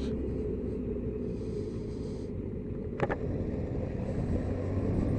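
Motorcycle engine running steadily at low road speed, with wind and road noise, heard from the rider's seat. A short click about three seconds in.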